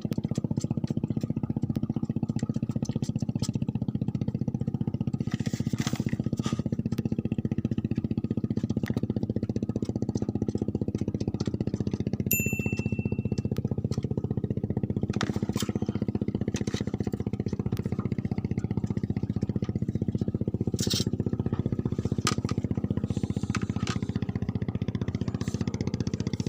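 An engine running steadily at an even speed, with a few scattered clicks and a short high beep about twelve seconds in.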